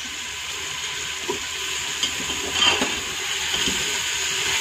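Beef and tomato masala sizzling in oil in an open aluminium pressure cooker, at the frying-down stage just after the tomatoes go in. A metal spoon scrapes the pot a few times as it is stirred.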